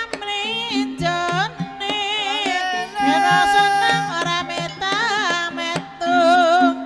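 Banyumasan ebeg accompaniment music: a high voice singing a melody with heavy vibrato over repeated low pitched notes from tuned percussion and sharp hand-drum strokes.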